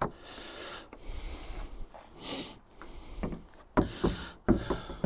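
Headlight assembly parts being handled and fitted back together: two short hissing rushes, then two sharp clicks less than a second apart near the end.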